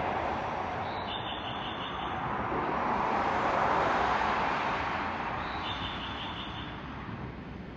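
Linimo HSST maglev train running away along its guideway: a steady wash of noise that swells once midway, then fades.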